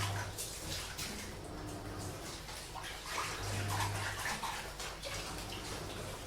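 Water splashing and running while dishes are washed, with light clinks of crockery, over a washing machine whose low hum swells for a moment about three and a half seconds in.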